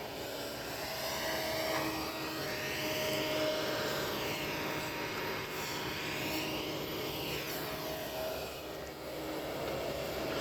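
Kobelco excavator running under load as it digs, a steady engine noise with a higher whine that rises and falls over several seconds.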